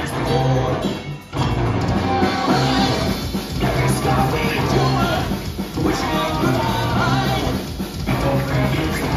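Live rock band playing loud: distorted electric guitar, bass and drums with a singer, the music breaking off for short stops roughly every two seconds.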